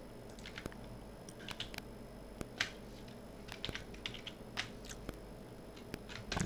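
Faint, irregular keystrokes on a computer keyboard: a dozen or so scattered clicks, some in quick pairs.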